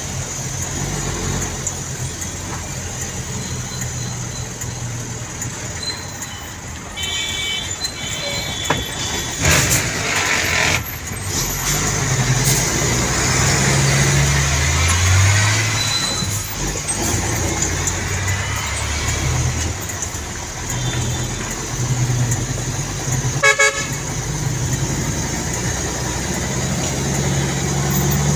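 A vehicle's engine running, heard from inside the cab while driving in traffic, its hum rising and falling with speed. Short horn toots sound twice about a quarter of the way in, a couple of knocks follow, and a quick stuttering horn beep comes late on.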